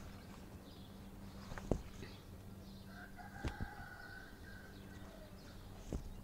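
A rooster crowing faintly, one drawn-out call about three seconds in. A few sharp knocks from leaves and branches being handled.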